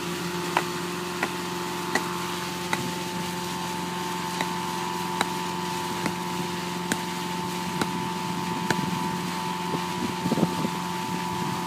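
Wooden stakes being driven with a sledgehammer through a compost filter sock: about a dozen sharp knocks, roughly one a second. Under them runs the steady drone of an engine.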